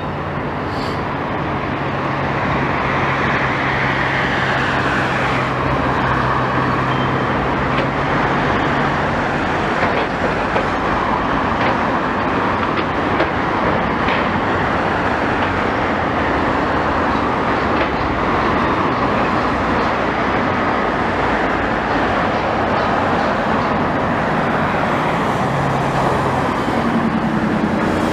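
Steady engine and traffic-type rumble, with a low engine hum for the first third and again near the end.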